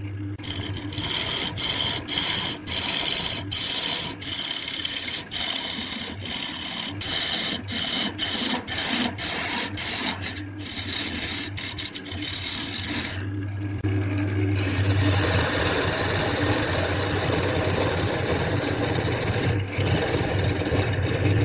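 Wood lathe running with a steady motor hum while a tool works the spinning wood, making a rough scraping hiss. The hiss is broken by many brief dropouts in the first half, then turns steadier and louder a little past the middle.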